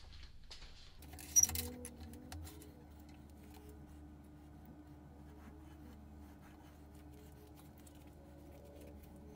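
Wood lathe tool rest being set by hand: one sharp metal clank about a second and a half in, then faint clicks and rattles over a low steady hum.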